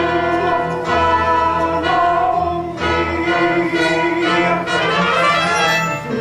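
Live pit orchestra playing, with bowed strings to the fore: held chords that change about once a second.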